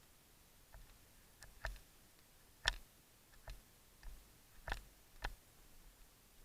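A string of sharp, short clicks or snaps at uneven intervals, about eight in all, the loudest about two and a half seconds in.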